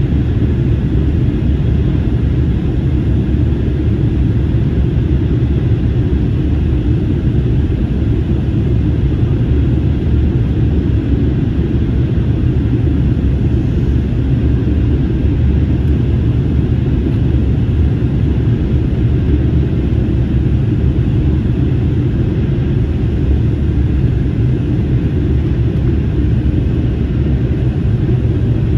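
Steady low rumble of cabin noise aboard an Airbus A321neo airliner: engine and airflow noise heard from inside the passenger cabin, with no change in level.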